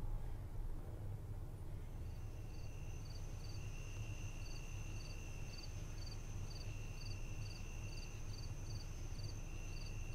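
Crickets chirping at night: from about two seconds in, a steady high trill with a rhythmic chirp about three times a second, over a low background rumble.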